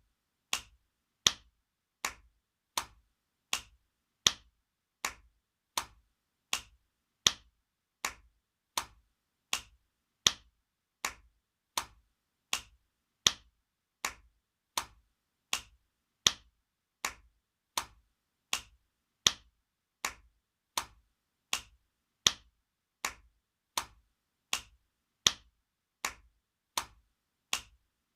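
Spanking sound effect: sharp slaps of a hand on skin, repeated in a steady loop about four every three seconds, with every fourth slap louder than the rest.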